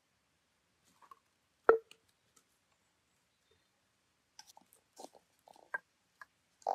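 Raw beef pieces and vegetables being dropped and pressed by hand into a glass jar: one sharp knock a little under two seconds in, then a run of small clicks and soft thuds near the end.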